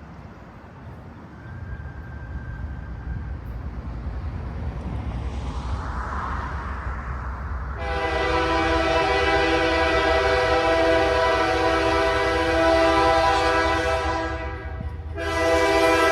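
Diesel locomotive of an approaching excursion train, its low engine rumble growing louder, then its multi-chime air horn sounding one long blast of about six seconds and, after a short gap, a second blast.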